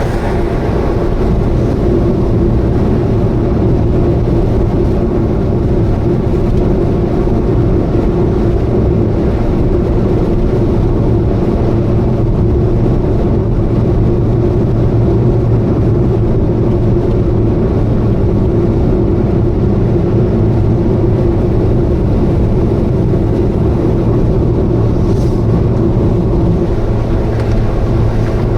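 Subaru Vivio's small four-cylinder engine and road noise, a steady drone with a constant low hum at an even cruising speed. It carries an abnormal noise that the owner takes for a possible exhaust leak.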